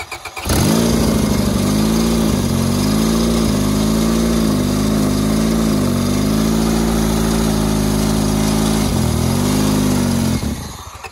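Honda Civic four-cylinder engine catching under the starter and running on ether sprayed into the intake, its speed rising and falling unevenly as the spray comes and goes. Near the end it dies away and the starter is heard cranking again.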